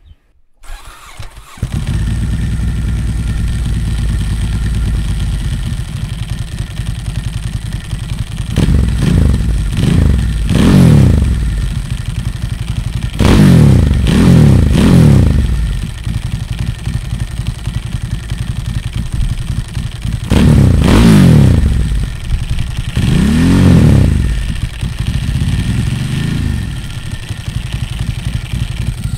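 Ducati Hypermotard 1100 Evo's air-cooled L-twin, breathing through a Zard full exhaust with no dB killer, cranks on the starter and fires about two seconds in, then idles very loud. Over the idle come about seven throttle blips, mostly in pairs, each rising and falling back, with the engine unloaded on the stand.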